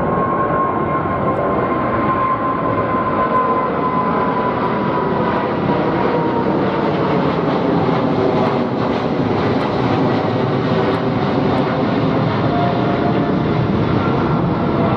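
Boeing 777-200ER twin-engine jetliner climbing out overhead after takeoff: a steady, loud jet roar, with a thin engine whine that slowly falls in pitch over the first few seconds.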